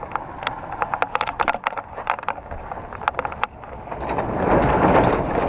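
Scattered short clicks and knocks, then a swelling rush of noise about four seconds in.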